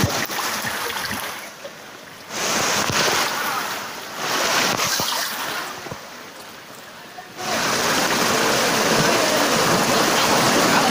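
Fast-flowing floodwater rushing and churning around people wading through it, a steady wash of water noise that falls away twice for a second or so before running on evenly.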